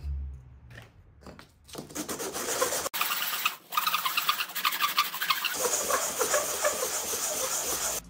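Cut end of a grey PVC pipe being rubbed on a sheet of sandpaper to sand the edge smooth: a gritty rasping in quick strokes, starting about two seconds in with a brief break in the middle.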